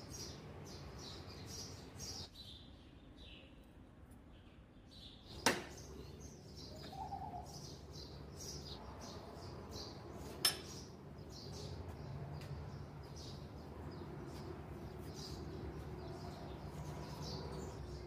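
Small birds chirping over and over, with two sharp metallic clinks about five and ten seconds in as the steel parts of a hydraulic cylinder are handled on a steel workbench and vise.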